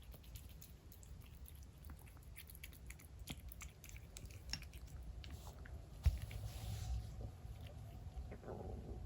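A kitten chewing food, with many small irregular clicks and crunches. A single dull thump about six seconds in.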